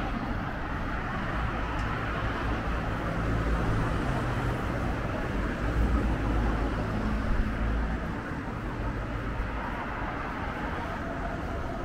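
Steady city road traffic: passing cars and engines rumbling and tyre noise, swelling about three seconds in and easing off near eight seconds as a heavier vehicle goes by.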